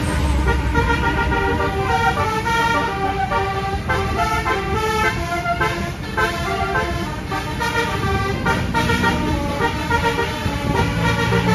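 Basuri-type telolet multi-tone horn on a Rahma bus playing a quick tune of changing notes, over engine and road noise.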